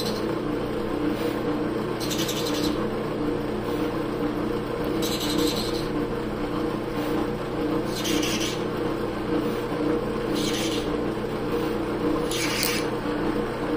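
Drill press motor running with a steady hum while a Forstner bit drills old glue out of a shaving-brush handle's knot socket. It gives five short scraping bursts, about two and a half seconds apart, as the bit is fed in. The glue is taken for epoxy and breaks up under the bit.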